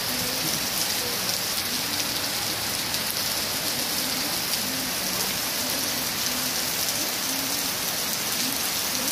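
Steady rain falling on thatched roofs, grass and wet stone paving, with water running off the thatch eaves.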